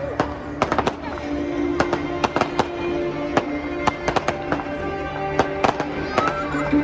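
Fireworks going off in quick, irregular bangs, with music playing underneath.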